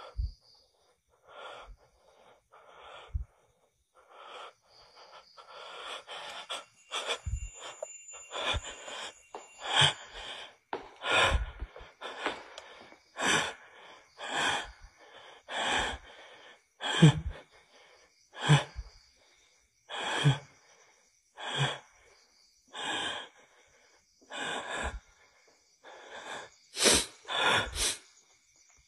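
A person breathing heavily and rhythmically, about one breath every second and a half, the breaths growing louder partway through.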